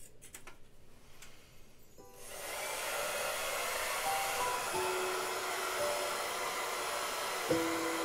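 Laifen Swift hair dryer switched on about two seconds in and blowing a steady rush of air. A few soft music notes come in over it in the second half.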